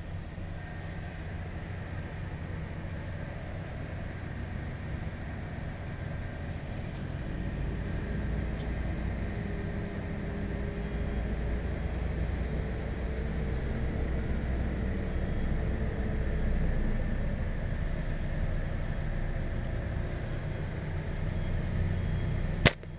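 Pickup truck engine idling with a steady low hum. Near the end, a single sharp snap as a slingshot is released.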